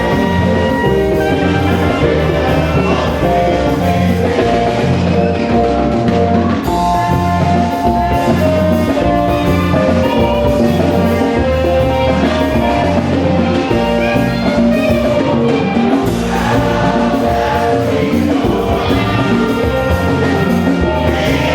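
Gospel music: voices singing over instruments with a steady beat.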